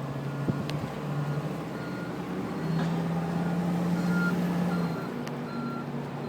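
A heavy vehicle's reversing alarm beeps a little more often than once a second over its running engine. The engine works harder and louder for about two seconds in the middle.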